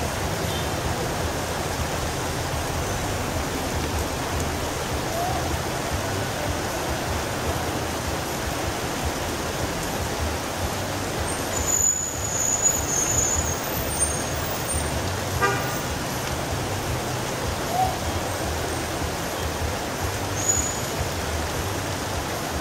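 Steady rain falling on a street, with vehicles driving through the wet. A short vehicle horn toot about fifteen seconds in.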